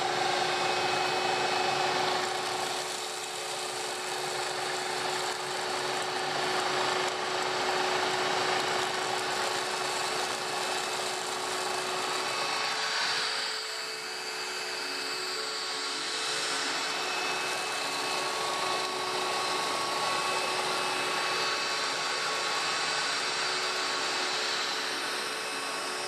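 SilverCrest SHSS 16 A1 cordless stick vacuum cleaner running, a steady motor whine over rushing air, dipping briefly about halfway through.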